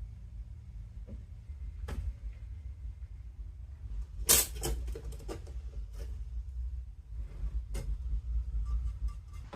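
Scattered clicks and knocks of glass pieces and lead came as a leaded stained glass panel is taken apart, with the loudest cluster about four seconds in. A steady low hum runs underneath.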